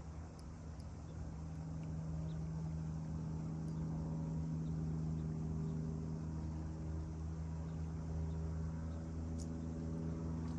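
A steady low engine hum, growing slightly louder after a second or two and holding, with a few faint ticks above it.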